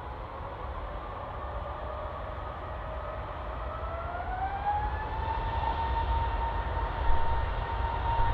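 Airbus A380's four Rolls-Royce Trent 900 turbofan engines spooling up to takeoff power. A whine rises in pitch over the first five seconds and then holds steady, over a low rumble that grows louder.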